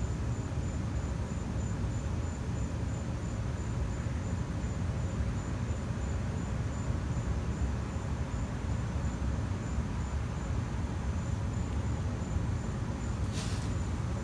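Steady low rumble with a faint, even, pulsing high trill like crickets. Two short scraping noises come near the end.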